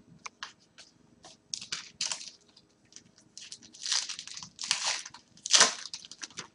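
Trading cards and their wrappers being handled: a run of small clicks and flicks with several louder crinkling swishes, the loudest about five and a half seconds in.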